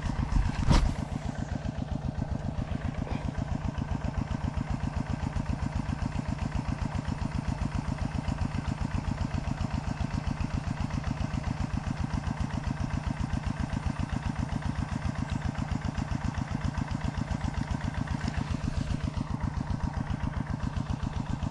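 A small engine running steadily with an even, low pulse that does not change, and a brief knock under a second in.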